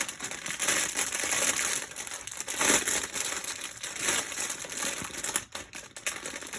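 Plastic LEGO parts bags crinkling as they are handled and sorted, with a short lull near the end.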